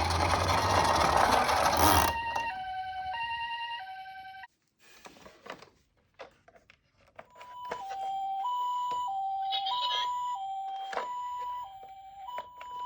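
Japanese ambulance two-tone hi-lo siren, 'pee-poh', alternating steadily between two notes. It sounds twice, with a quiet gap of small clicks between, and follows a loud rushing noise in the first two seconds.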